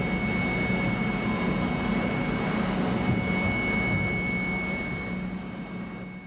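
A machine running steadily, with a constant high whine over a low hum and noise, fading out near the end.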